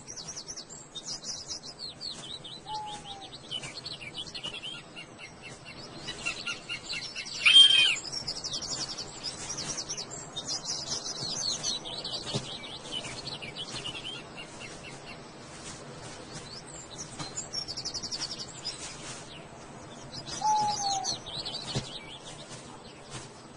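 Small birds singing: repeated high chirps and trills, with a louder call about seven and a half seconds in and a short falling whistle twice.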